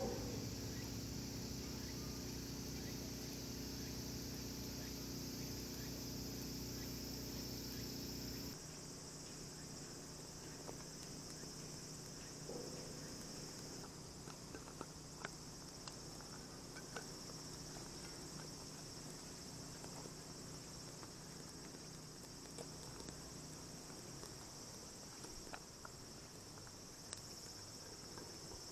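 Insects chirping in a steady, high-pitched chorus, with scattered faint clicks. A low hum under it cuts off abruptly about eight seconds in.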